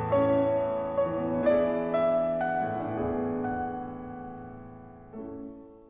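Solo piano music, slow notes and chords ringing on, fading out gradually; a last chord sounds about five seconds in and dies away.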